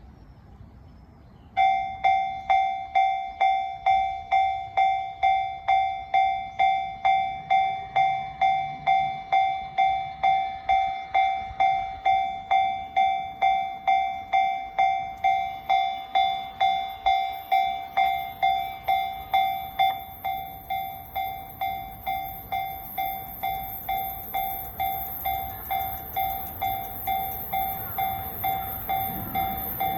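Japanese level-crossing electronic warning bell starting about a second and a half in and ringing steadily about three times a second. A train's approach noise builds beneath it in the second half, growing louder near the end.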